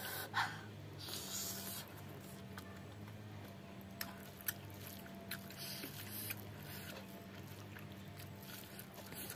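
Fingers mixing and pressing rice into pork blood stew on a wooden plate, soft wet handling sounds with a few sharp clicks scattered through, over a faint steady low hum.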